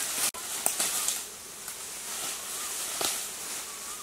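Bamboo-forest ambience: a steady high insect hiss with a few short whistled chirps, and leaves and stems rustling and snapping a few times, the sharpest about three seconds in. The sound briefly cuts out near the start.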